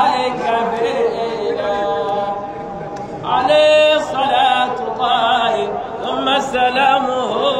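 A young man chanting a religious song into a microphone, holding long notes that bend up and down in pitch. The singing swells louder a little over three seconds in.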